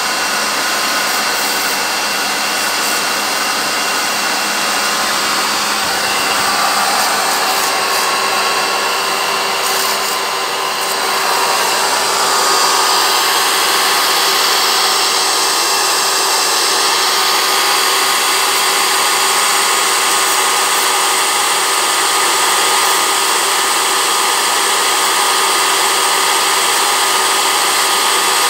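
Pressure washer running steadily: its motor and pump hum with a few steady tones under the hiss of the water jet spraying the wooden, wire-mesh cages. It gets slightly louder about twelve seconds in.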